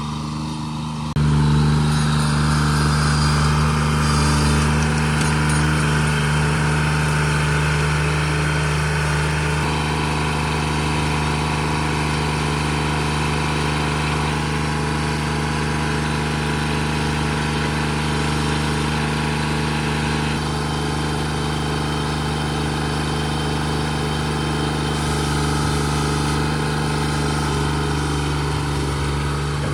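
Steiner 430 tractor's engine running steadily at an even speed, getting louder about a second in.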